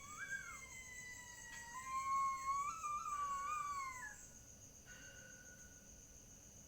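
Several overlapping animal howls in long wavering glides that rise and fall, loudest midway and fading out, over a steady chirring of night insects.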